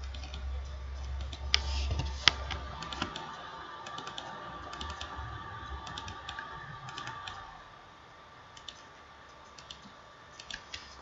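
Scattered clicks of a computer mouse and keyboard, coming in small clusters, with two sharper clicks early on. Under them runs a faint steady hum that drops away about three-quarters of the way through.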